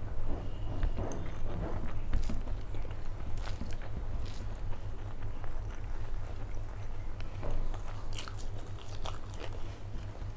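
Close-miked chewing and wet mouth sounds of a person eating rice and curry, with soft smacks and squishes as fingers mix rice on the plate, over a low steady hum.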